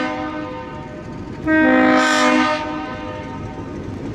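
Multi-note air horn of a GE CW44AC diesel locomotive: the tail of one blast, then a second blast of about a second starting about a second and a half in, over steady train noise.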